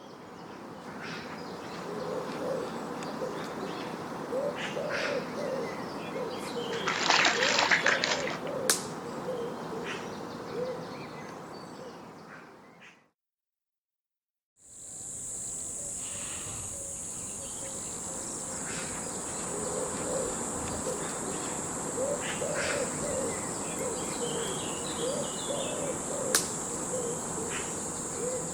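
Tropical forest ambience: insects and bird calls, with short calls repeating throughout. After a brief silence about halfway, a loud steady high-pitched insect drone joins in and continues.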